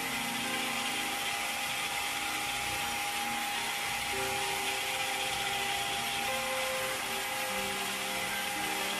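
Electric drill running steadily under load, its long bit boring into the edge of a wooden door to cut the pocket for the lock body. Soft background music with held notes plays underneath.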